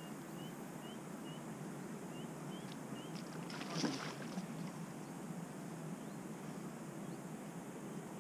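A hooked carp splashing and thrashing at the surface close to the bank, one short burst about four seconds in, over steady outdoor wind noise. Small rising bird chirps come several times in the first three seconds.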